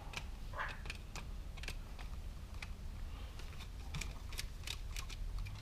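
Faint, irregular small clicks and ticks of a screwdriver working on a GFCI receptacle's terminal screws and plastic body.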